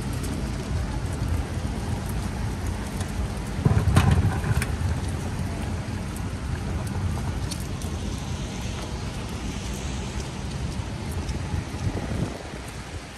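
Steady rain hiss mixed with low street-traffic rumble, with a brief louder low rumble about four seconds in.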